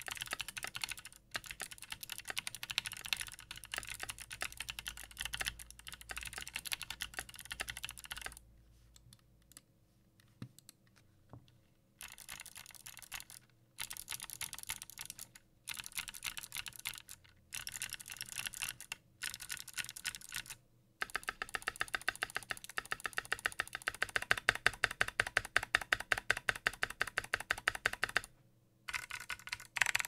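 Melody96 custom mechanical keyboard with a brass plate, Kailh Speed Bronze clicky switches and PBT keycaps being typed on fast. Runs of sharp clicky keystrokes are broken by short pauses, with a longer pause about a third of the way in and a long, even run of strokes in the second half.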